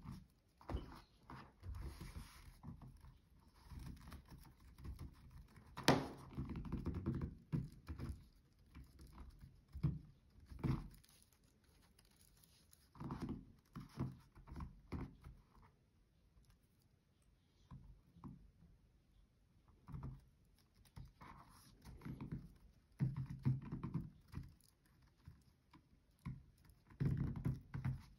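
Handling noise from hands working a sock snowman on a cutting mat: irregular soft thumps, taps and fabric rubbing, with one sharp click about six seconds in.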